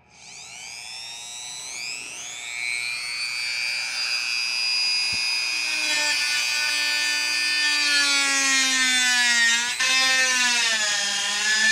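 Handheld rotary tool spinning up to a high whine, then running with its small bit grinding at a pilot hole in an RV roof; its pitch sags a few times under load near the end. It makes little headway in enlarging the hole, and the user judges it not an appropriate tool for the job.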